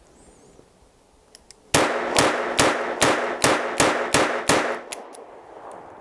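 Taurus 942 revolver in .22 Magnum fired eight times in rapid double action, about two and a half shots a second, starting a little under two seconds in.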